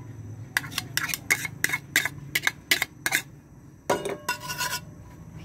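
Chopped garlic tipped from a plastic cup into a metal pan, making sharp clicks and taps about three a second, then a quick flurry of clicks near the end.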